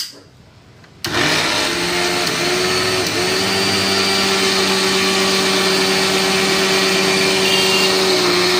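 Mixer grinder switched on about a second in, its motor and steel jar coming up to speed and then running steadily at high speed. It is a sign that the grinder works again after its reset fault was repaired.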